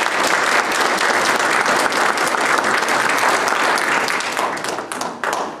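Audience applauding, tailing off near the end.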